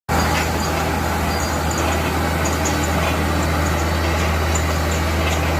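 Large diesel-driven air compressor running steadily: a loud, deep, unchanging engine drone with a rush of noise above it, starting abruptly about a tenth of a second in.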